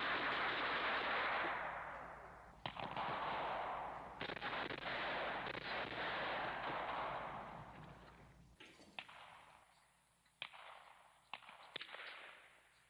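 Scattered sharp bangs over a steady hiss that fades away about eight seconds in, followed by a few fainter, separate pops near the end.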